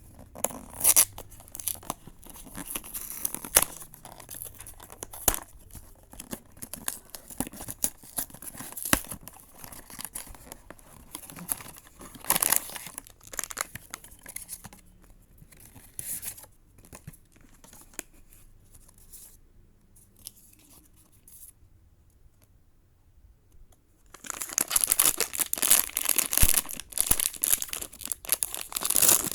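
Pop Mart blind-box packaging being opened by hand: cardboard and the figure's foil wrapper torn and crinkled in scattered crackles, turning into a dense stretch of crinkling near the end.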